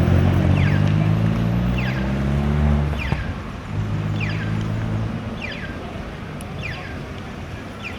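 Motor vehicle engine running close by, a low hum that breaks off briefly about three seconds in, comes back, then fades away after about five seconds. Short, high, falling chirps repeat about once a second over the traffic noise.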